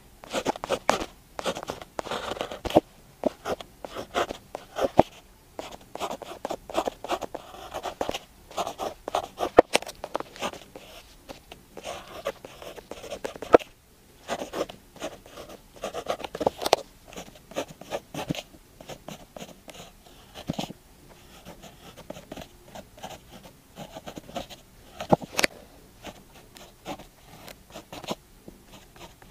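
Pen scratching on paper in close-up handwriting: quick, irregular stroke after stroke, with short pauses between characters and a few sharp taps of the pen on the page.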